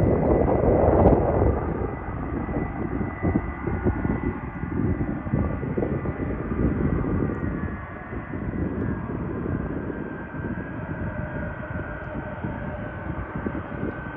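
Boeing 747-400 freighter's four turbofan engines running at taxi power: a steady high whine over an uneven rumble, loudest in the first second or two.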